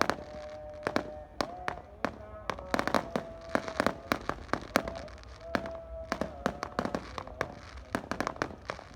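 Fireworks and firecrackers going off in rapid, irregular succession: many sharp bangs and pops, some overlapping, a few louder than the rest. A steady held tone sounds beneath them.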